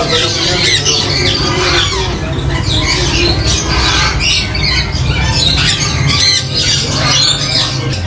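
Many parrots squawking at once, short harsh calls overlapping one another throughout.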